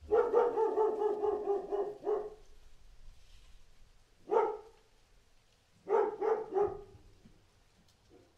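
Dog barking: a drawn-out call lasting about two seconds, then a single bark, then a quick run of three barks, with a faint last one near the end.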